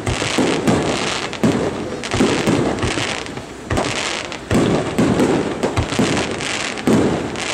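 Aerial fireworks shells going off in quick succession: a rapid, irregular string of loud bangs, several a second, with crackling in between.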